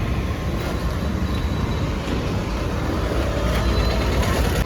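Steady low rumble and hiss of a moving vehicle's road noise.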